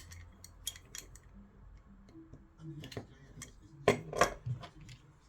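Small hard clicks and clinks of tools and parts being handled while a Harman Kardon Esquire Mini speaker is taken apart, with two louder clacks close together about four seconds in.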